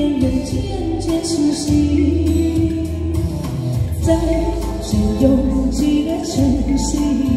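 A woman singing a Chinese pop song into a handheld microphone, amplified through a small street PA, over a backing track with a steady bass line and drums.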